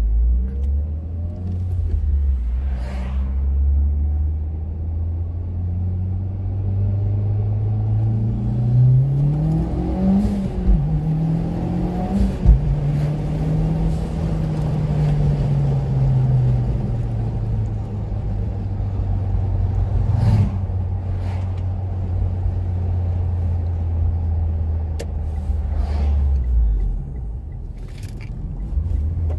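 Mitsubishi Lancer Evolution X's turbocharged four-cylinder engine heard from inside the cabin while driving. The engine note climbs under acceleration about a third of the way in, with brief dips like gear changes, then falls away and settles into a steady low cruising hum that drops lower near the end.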